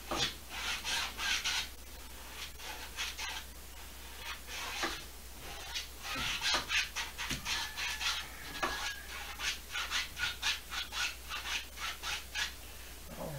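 Paintbrush bristles scrubbing across a stretched canvas in a run of short, scratchy strokes, in places about three a second, with brief pauses between groups of strokes.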